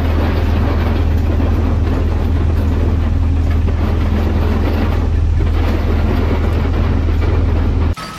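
A loud, steady low engine rumble with mechanical noise, which cuts off abruptly just before the end.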